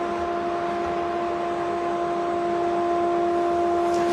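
A CNC machine running with nothing changing: a steady hum with a constant whine and its overtones over an even hiss.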